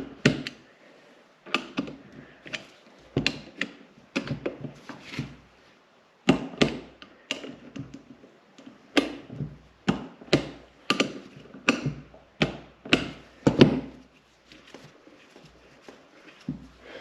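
Torque wrench at work on the M6 bolts of a Mercedes M113 V8 oil pump: a series of short sharp clicks and knocks in irregular runs, pausing briefly about five seconds in and growing fainter near the end.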